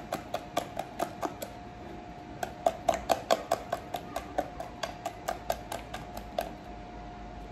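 A hand beating thick besan (gram-flour) pakora batter in a clay pot: quick wet slaps, about four or five a second, that stop near the end. The batter is being beaten to aerate it so the pakoras puff up soft.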